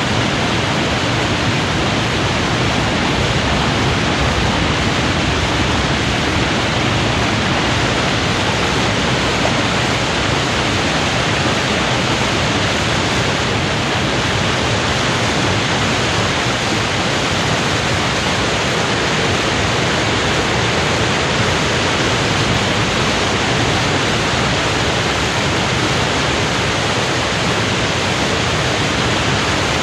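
Water pouring over a weir in full flood: a loud, steady rushing roar with no let-up.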